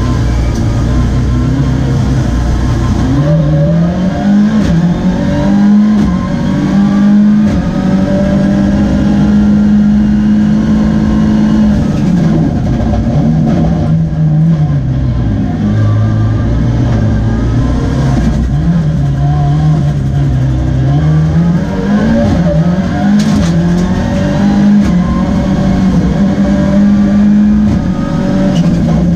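Mitsubishi Lancer Evolution 9 rallysprint car's turbocharged 2.0-litre four-cylinder engine at race pace, heard from inside the cabin. Its revs climb, hold and fall away again and again as the car is driven hard through the gears and into corners.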